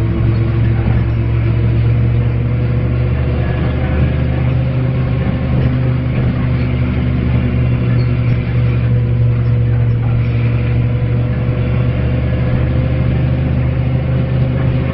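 Dennis Lance single-deck bus engine running steadily under a light, even load, a deep continuous drone with little change in pitch.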